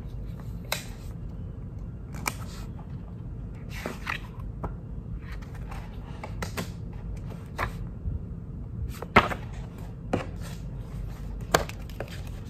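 Paper handling at a desk: book pages being turned and sticky page flags peeled off and pressed down, making scattered rustles and sharp little taps and clicks, two of them louder near the end. A steady low hum runs underneath.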